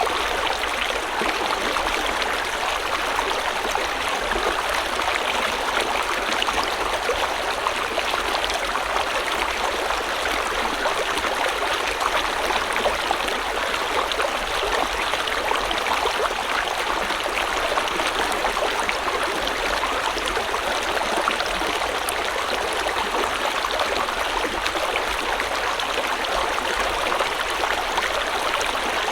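River water flowing and splashing steadily over rocks, a continuous rushing stream sound with no change in level.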